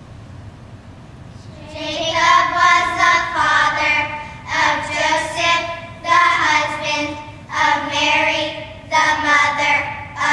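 Children singing, starting about two seconds in after a quiet stretch, in phrases with short breaks between them.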